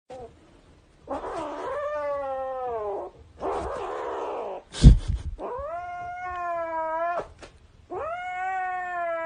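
A cat yowling in three long drawn-out calls, the first sliding down in pitch and the later two holding steady. There is a loud thump about five seconds in.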